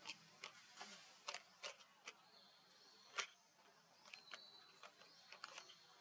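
Near silence with faint, irregular clicks and ticks, one sharper click about three seconds in, over a faint thin high tone that drops away early and returns after about four seconds.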